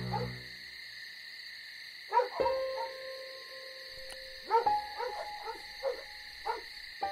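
Night-time outdoor ambience: a steady high insect-like drone with short animal calls repeating about twice a second, and a louder call about two seconds in and again near the middle. A low hum fades out in the first half second.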